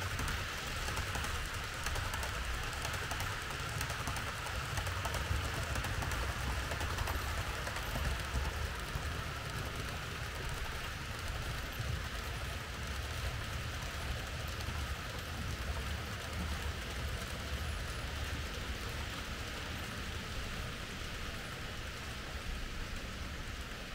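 Märklin H0 model train running on the layout: a steady rolling rumble with a hiss over it, easing off slightly near the end.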